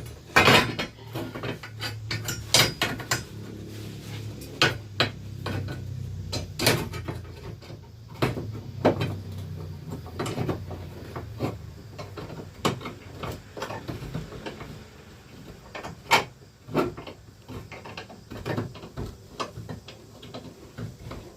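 Irregular knocks, clanks and clicks of tools and metal parts being handled and set down during metalwork, with a low hum during roughly the first eight seconds.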